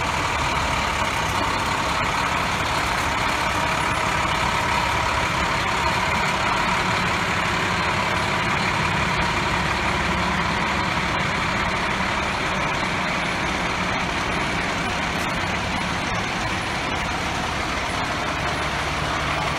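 Fire engines running as they roll slowly past one after another, a steady, loud engine noise with no break.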